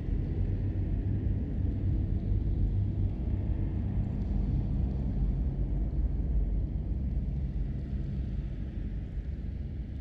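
Cave atmosphere: a steady low rumble of room tone, easing slightly in the last few seconds.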